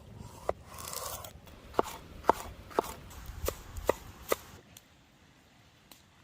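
Knife chopping on a cutting board: about seven sharp, irregularly spaced strokes, with a brief rustle about a second in. The chopping stops a little past halfway.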